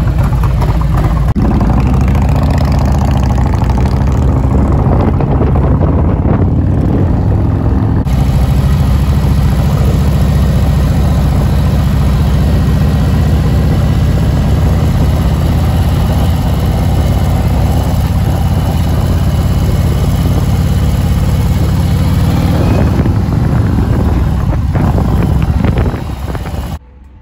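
V-twin engine of a big touring motorcycle running close to the microphone, at idle and then riding slowly, with a sudden change in its sound about eight seconds in. It cuts off shortly before the end.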